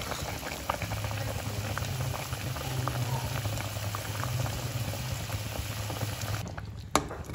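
Onion curry gravy simmering in a metal kadai, bubbling steadily with many small pops, over a low steady hum. A single sharp click sounds near the end.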